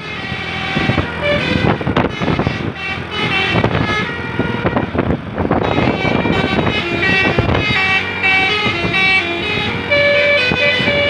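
Basuri telolet horn on a tour bus playing its multi-note melody: a quick run of short horn notes changing pitch, with a few notes held longer near the end.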